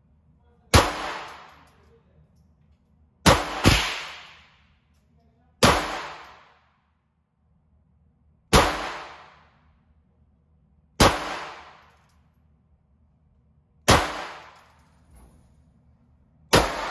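Eight single gunshots fired slowly at uneven intervals, two of them in quick succession about three seconds in. Each shot is a sharp crack with an echo that fades over about a second.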